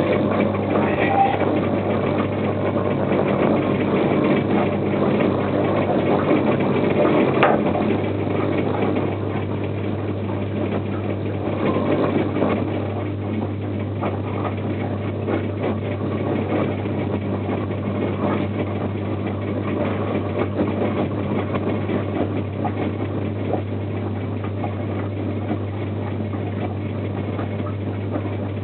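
Small 35 W electric air compressor running steadily while pumping air into a 30-litre beer keg, with a steady low hum that grows stronger about eight seconds in.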